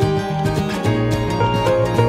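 Background music with plucked string instruments over a low bass line.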